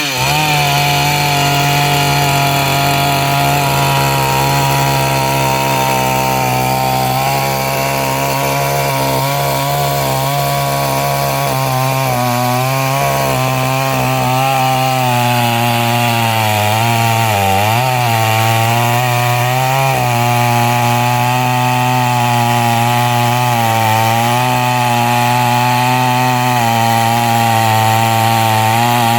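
Chainsaw running at high revs, cutting through a tree, held at a steady pitch that wavers as the chain takes load and dips briefly about two-thirds of the way through.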